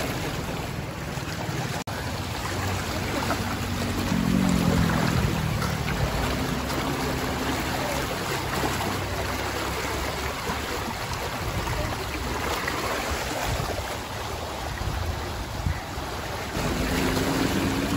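Steady rush of fast-flowing floodwater in a small canal swollen by a river in spate.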